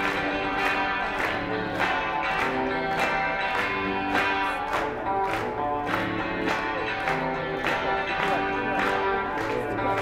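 Rock music with no singing: electric guitar playing over a steady drum beat.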